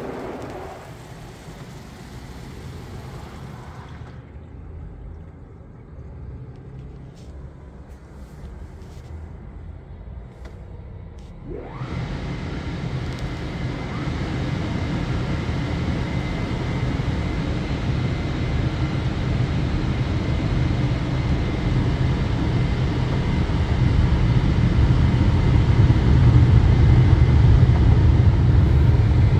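Touchless automatic car wash heard from inside the car. A low muffled rumble runs at first. About twelve seconds in, a machine spins up with a rising whine, and a steady rush of water spray on the car body starts and grows louder toward the end.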